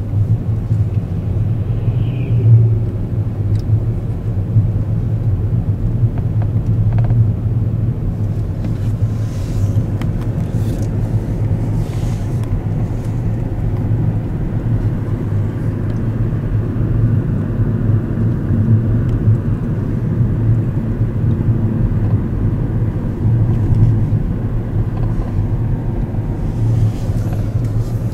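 Car driving: a steady low rumble of road and engine noise with no change in pace.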